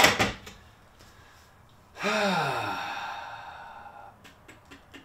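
A short, sharp knock as the plastic water-fill hatch is set down, then about two seconds later a man's long breathy sigh whose voiced tone falls in pitch and fades away.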